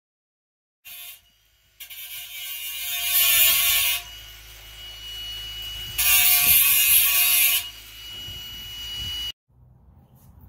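Handheld angle grinder cutting steel: two long spells of loud grinding as the disc bites into the metal, with the motor whining steadily between them. It cuts off abruptly near the end.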